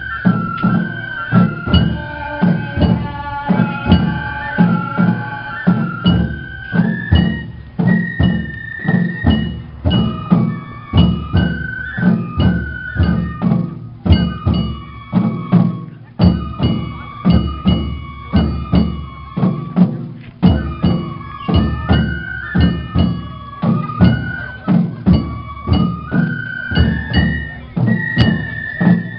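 Japanese festival-float hayashi music: a high bamboo flute melody played over steady, repeated taiko drum beats.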